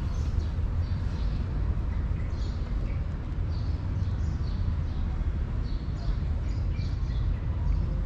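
Cat crunching dry kibble, a string of short crisp crunches at an irregular pace, over a steady low rumble.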